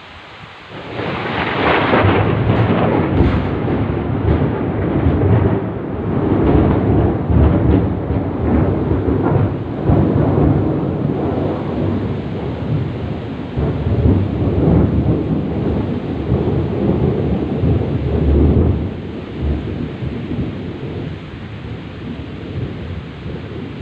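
A long roll of thunder over heavy rain: it breaks suddenly about a second in, rumbles loudly and unevenly for nearly twenty seconds, then eases off near the end while the steady rain hiss goes on.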